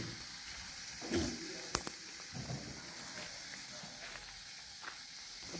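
Steady hiss and sizzle of a covered cooking pot over an open three-stone wood fire, with one sharp click a little under two seconds in.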